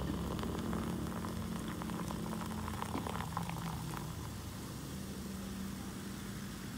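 A drink poured from a can into a Snow Peak titanium mug: a steady stream of liquid splashing into the metal cup.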